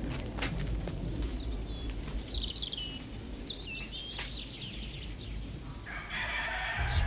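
Farmyard fowl calling: a few short, high, curving calls about two to four seconds in, then a longer, rougher call near the end, with a couple of sharp clicks.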